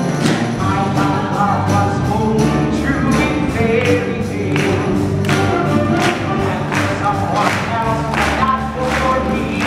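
Live stage musical: the cast singing together in chorus over instrumental accompaniment, with a steady beat of about three strokes every two seconds, recorded from the audience in the theatre.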